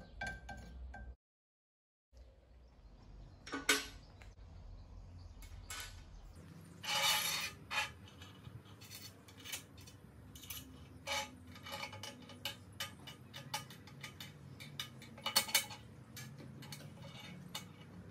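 Steel parts of a homemade tap wrench clinking, clicking and scraping against a steel table as they are picked up and fitted together, in irregular light knocks. The sound drops out completely for about a second near the start.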